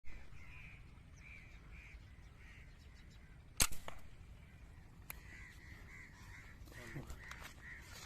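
A single sharp shot from a Diana 350 Magnum .177 break-barrel spring-piston air rifle about three and a half seconds in, followed by a fainter click a second and a half later. Crows caw repeatedly in two runs before and after the shot.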